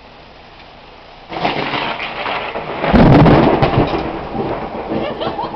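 Thunder with rain falling: a rumble starts about a second in, builds to a loud crack about three seconds in, then rolls away.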